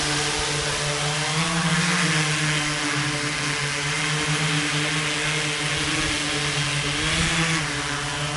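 Large quadcopter's four Emax MT3515 brushless motors spinning 15x4 propellers in flight: a steady droning buzz whose pitch shifts slightly up and down as the motors adjust.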